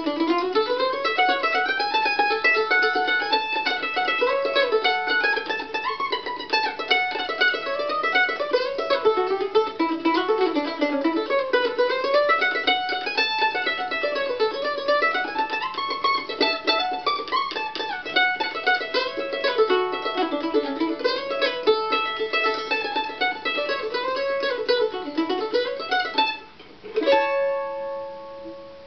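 Dudenbostel F-5 mandolin with an Adirondack spruce top, played with fast picked runs of single notes that climb and fall. Near the end the runs stop, and one last strum rings out and fades.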